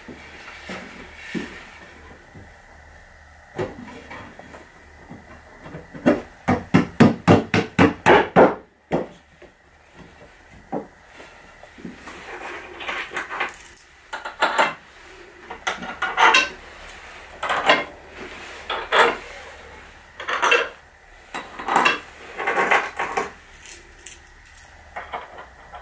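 Wood knocking on wood with metal clinks as homemade wooden bar clamps are set across a glued-up board panel and metal pins are fitted into their holes. A quick run of about a dozen knocks comes a little after five seconds in, then scattered knocks and clinks follow.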